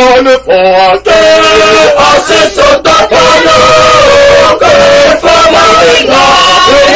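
A family of men, women and children singing a hymn together in mixed voices, holding long notes, with a few short breaks between phrases in the first second.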